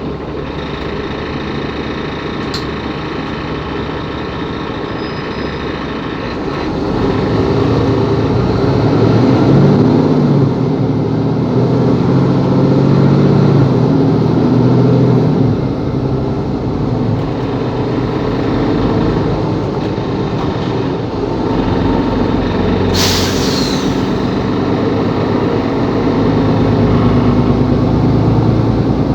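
Mercedes-Benz Capacity L articulated city bus driving, its diesel engine running and pulling harder from about seven seconds in, with the pitch rising and falling. Near the end, a short hiss of compressed air is let out.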